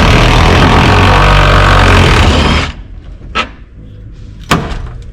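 A power tool runs loudly for about two and a half seconds on a rusted body bolt, then stops suddenly. Two sharp knocks follow.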